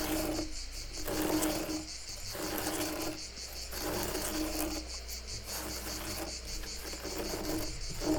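Scratching strokes on wood, repeated about once a second, over crickets chirping steadily.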